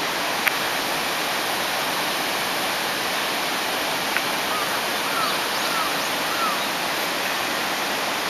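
Steady rushing of a shallow river running over rocks and rapids, with a few faint short chirps about halfway through.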